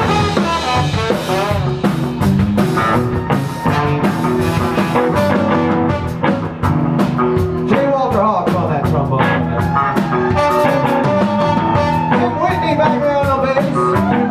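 Live band playing a rock-style song, with guitars over a steady beat.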